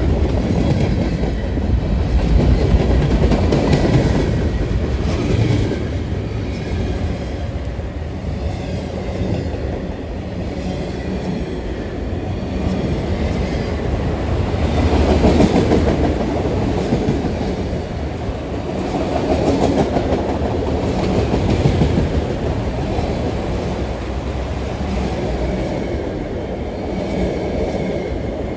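Freight train cars rolling past, their steel wheels clacking over the rail joints with a steady heavy rumble that swells and eases.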